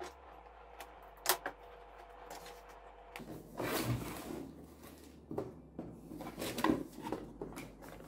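Cardboard packaging of a PC power supply being opened and handled. Two sharp clicks come about a second in, then rustling and scraping with several knocks as the box is worked open.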